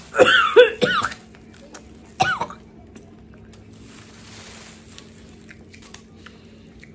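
Two short bursts of wordless vocal sound from a young woman, about two seconds apart, followed by a few faint clicks.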